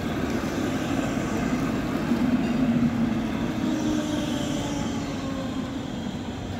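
Electric street tram passing close by on wet rails: rolling wheels and a low hum that is loudest about two to three seconds in, fading as it moves away.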